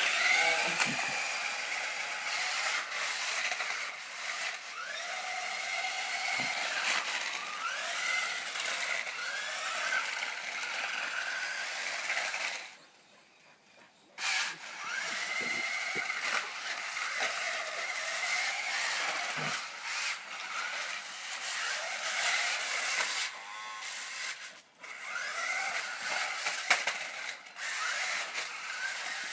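Toy remote-control car's small electric motor whining, its pitch rising and falling as the car speeds up, slows and turns, with the wheels rattling on concrete. The sound drops out for about a second and a half near the middle.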